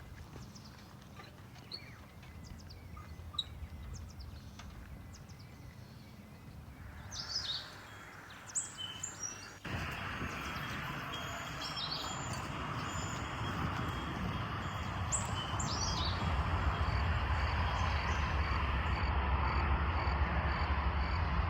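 Birds chirping in short high calls over outdoor background noise. Partway through, the background jumps suddenly to a louder steady hiss. Near the end a faint high chirp repeats about twice a second.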